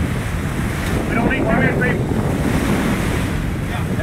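Wind buffeting the microphone and sea water rushing around a sportfishing boat's stern, over a steady low rumble from the boat.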